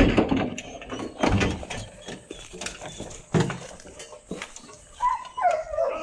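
Hunting dogs jostling close to the microphone, with sharp knocks and clicking rattles from their collars and gear, and a dog whining briefly near the end.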